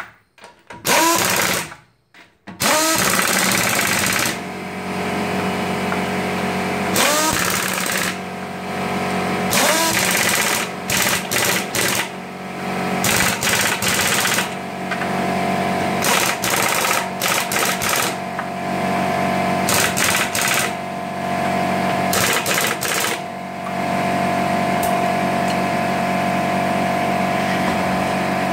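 Pneumatic impact wrench running lug nuts onto a car wheel in a string of short hammering bursts, each a second or two long, some starting with a brief rising whine. An air compressor runs steadily underneath and is left alone for the last few seconds.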